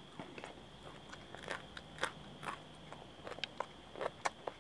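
Close-miked chewing of crisp fried piyaju fritters and green chillies: irregular crunches and wet mouth clicks, busiest about a second and a half in and again near the end.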